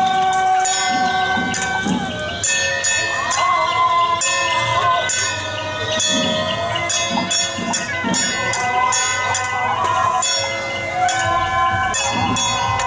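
Taiwanese temple-procession band music: a suona playing a melody of held, wavering notes over drum beats, with constant quick metallic jingling and cymbal strikes.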